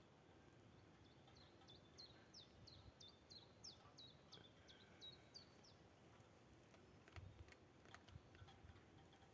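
A songbird singing faintly: a run of about a dozen quick, high notes, each sliding down in pitch, repeated at about three a second for some four seconds. A few soft clicks follow near the end.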